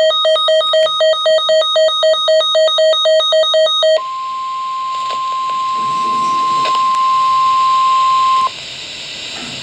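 Rapid electronic alert beeping, about five beeps a second, for about four seconds, then the steady 1050 Hz NOAA Weather Radio warning alarm tone, held for about four and a half seconds and cut off sharply. Radio hiss follows.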